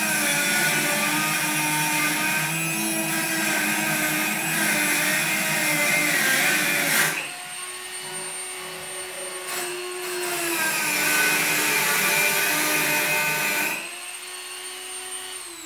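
Dremel rotary tool with a cutting wheel grinding through a soft metal support bar, biting into the cut twice with a lighter, steady high whine between. Near the end the tool is switched off and its whine falls away.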